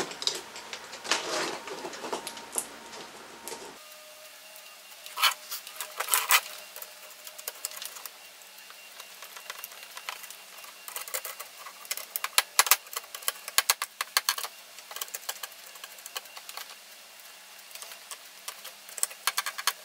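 Small sharp clicks and taps of speaker wires and connectors being handled and fitted into the terminals of a small Bluetooth amplifier board, scattered at first and coming thick and fast in the second half.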